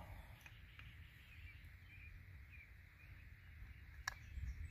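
Quiet outdoor background with a few faint bird chirps and a single sharp click about four seconds in.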